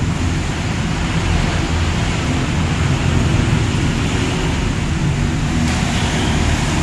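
Steady, loud rumbling noise with no clear tone or rhythm, heaviest in the low end.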